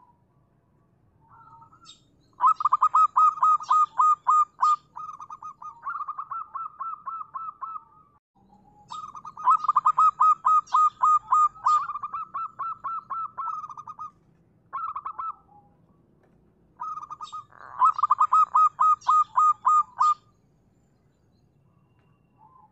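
Zebra dove (perkutut) singing: three bouts of rapid staccato cooing notes, each several seconds long, with short soft coos between them.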